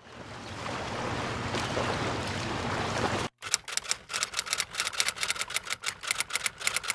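A steady rushing noise fades in over about three seconds and cuts off abruptly. Then comes a fast, irregular run of sharp clicks, several a second, like typing.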